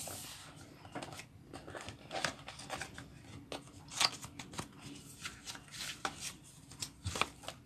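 Cardboard packaging and paper being handled inside a phone's retail box: light rustling and small clicks, with a sharper tap about four seconds in and another near the end.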